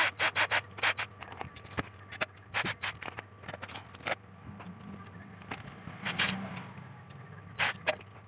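Pen scratching on paper in short strokes: a quick run of about five at the start, then single strokes scattered through, one longer stroke a little past the middle and two more near the end.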